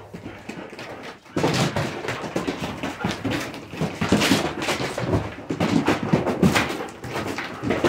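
A seven-month-old dog chasing a flirt pole lure across a concrete and gravel floor: scuffling, scrabbling paws and the lure dragging and slapping on the ground. The scuffling comes in suddenly and loud about a second in, with many sharp knocks.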